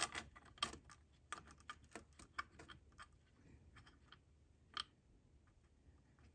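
Faint, irregular small metallic clicks and ticks from a bolt being threaded by hand into a new aluminum coolant pipe on the engine, with one sharper click about three-quarters of the way through.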